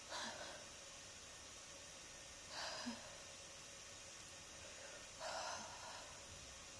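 A person with a heavy head cold breathing noisily, three short breaths about two and a half seconds apart.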